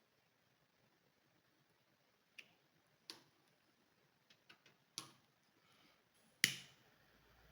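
About seven sharp clicks and knocks of small hard objects being handled, spread unevenly over a few seconds, the last and loudest near the end. A faint steady low hum starts just before the end.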